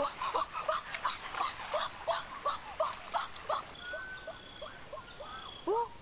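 Animal calls: a string of short falling chirps, about three a second. Two-thirds of the way in, a steady high-pitched whine joins them and holds.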